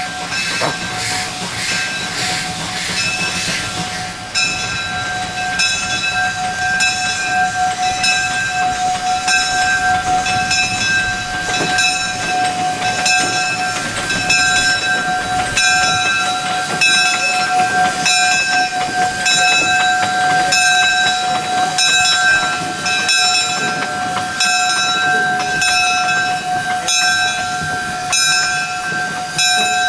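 Bell of a 1912 Heisler geared steam locomotive ringing steadily, a little over one stroke a second, as the engine rolls slowly into the station. Steam hisses and chuffs through the first few seconds.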